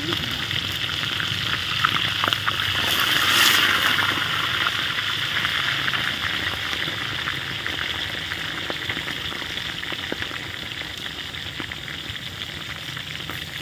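Fish frying in hot oil in a wok, a steady sizzle. It swells to its loudest about three seconds in, then slowly dies down.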